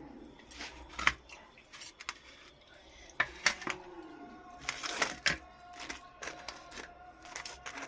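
Irregular sharp clicks and clinks of tableware being handled, a dozen or so scattered taps with a cluster around the middle.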